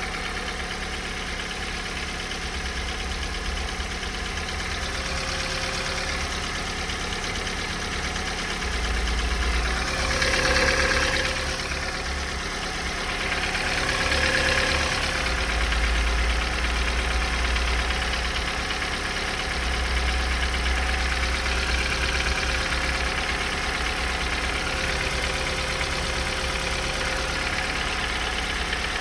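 Opel Z14XEP 1.4-litre four-cylinder petrol engine running with a knock. The sound swells briefly twice, around ten and fourteen seconds in.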